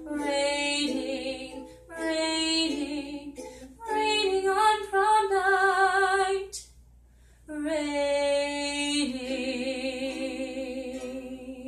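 A young woman singing long, held notes with vibrato and no words, in several phrases. A short pause falls about seven seconds in, followed by one long held note.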